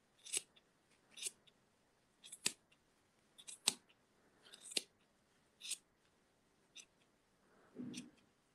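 Small scissors snipping through the wrapped yarn loops of a pom pom to cut it open, a faint crisp snip about once a second.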